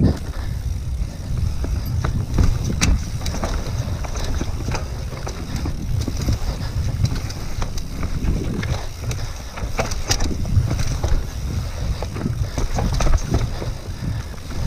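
Mountain bike riding down a rough dirt trail: a continuous low rumble of tyres and air rushing past, with frequent sharp clicks and clatters as the bike rattles over bumps.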